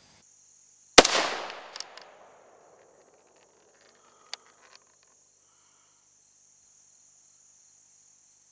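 A single rifle shot from an AR-15 firing 5.56 mm XM193 55-grain ammunition, about a second in, its report echoing and fading over the next second and a half. A few faint clicks follow.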